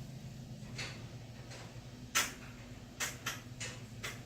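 Sharp mechanical clicks and knocks, about six, as a car's shift lever is worked from park into neutral; the loudest comes a little after two seconds in. A steady low hum runs underneath.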